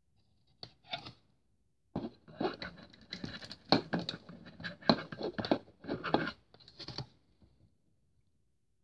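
Hard plastic parts of a small model airliner being handled and pressed together: a run of sharp plastic clicks and scraping, with a short burst about a second in and a longer, busier stretch after that.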